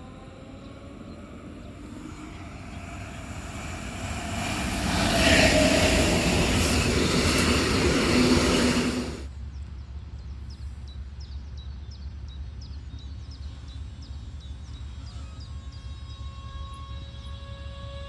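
DB class 425 electric multiple unit passing close by, its wheel and running noise building up over a few seconds and then dropping off suddenly about nine seconds in. A lower rumble with faint high ticks follows, and a rising electric whine comes in near the end.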